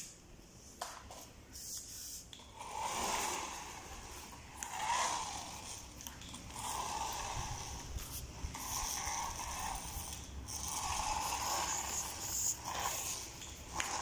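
Small electric motor and plastic gears of a toy remote-control car whirring in spurts of about a second, starting a few seconds in and repeating every couple of seconds as it is driven in short runs.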